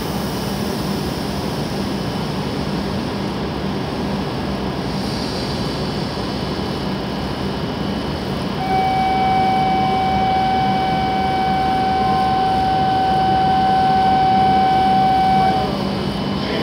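W7 series Shinkansen train standing at the platform, its equipment giving a steady whooshing hum. About nine seconds in, a steady electronic warning tone starts, holds for about seven seconds and cuts off.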